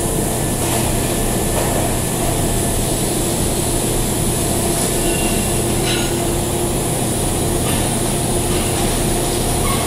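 TIG welding on pipe: a steady, unbroken buzzing hiss over a constant low hum, with a few faint clicks.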